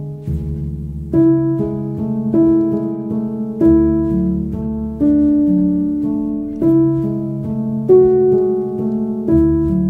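Background music: a slow melody with a new note struck about once a second over low held tones.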